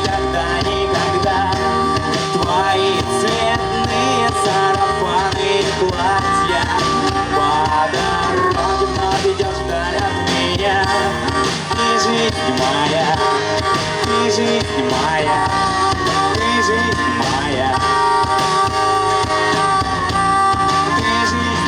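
Rock song with a singing voice and guitar.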